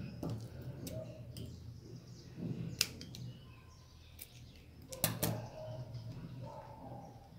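Scattered sharp clicks and taps from handling a glass jar and trimming ribbon with scissors, with a quick cluster of snips about five seconds in. A low steady hum runs underneath.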